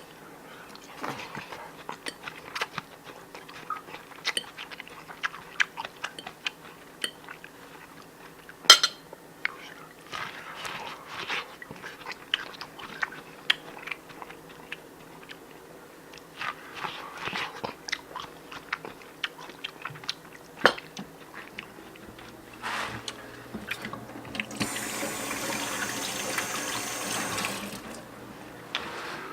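Scattered clinks and knocks of dishes and cutlery, then a tap running for about three seconds near the end.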